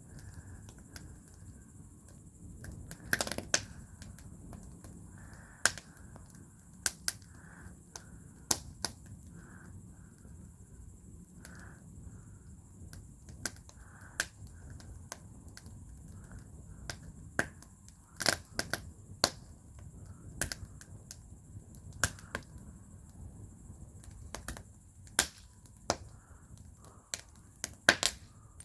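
Wood fire burning in a fire bowl, crackling with irregular sharp pops over a low steady rush, a few pops much louder than the rest.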